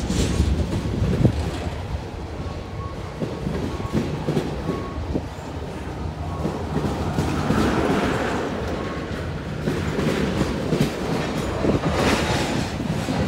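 Norfolk Southern freight train's tank cars rolling past at steady speed, a continuous rumble with the steel wheels clicking and clunking over the rails.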